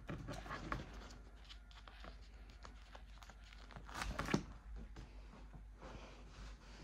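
Fabric rustling and crinkling as clothing is handled close by, with scattered small clicks and a louder burst of rustling about four seconds in.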